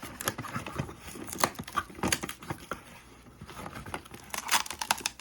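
Cardboard box being torn and pried open by hand: irregular ripping and crinkling with sharp snaps, a few louder rips about a second and a half in, at two seconds and near the end.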